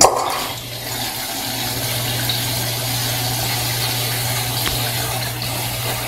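Electrolux LT08E Turbo Agitação top-loading washing machine filling: water rushing steadily into the tub through the inlet, with a steady low hum underneath, at the start of a wash cycle.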